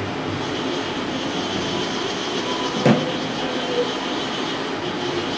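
Haas VF2-SS vertical machining center moving along its Y axis: a steady mechanical whir of the axis drive with a high whine over it, and one sharp clunk about three seconds in.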